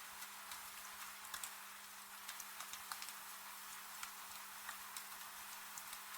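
Wood fire crackling with irregular sharp pops, over a steady rain-like hiss.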